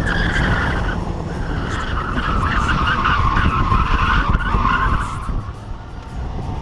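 Car tyres squealing as the sedan corners hard through an autocross course, a wavering squeal that dips briefly about a second in and dies away about five seconds in, over a low rumble of engine and road noise.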